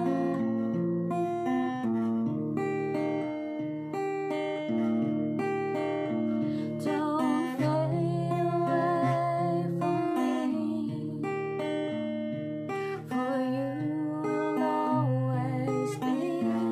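A woman singing, her voice wavering with vibrato on held notes, over her own acoustic guitar playing chords.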